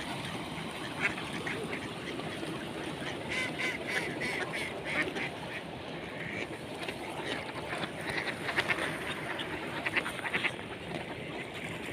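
A flock of mallards quacking: short quacks come in quick runs again and again over a steady background hiss.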